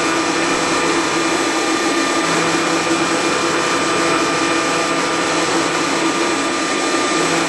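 CNC lathe's live-tooling spindle milling a flat on a metal part for a hexagon: a steady machine whir with several steady whining tones. A lower hum joins about two seconds in.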